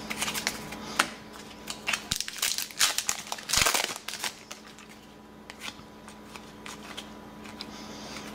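Foil trading-card pack wrapper crinkling as it is handled and pulled open, among quick clicks of cardboard cards being flicked through one by one. The loudest crinkle comes a little over three seconds in; the second half is quieter, with only scattered ticks.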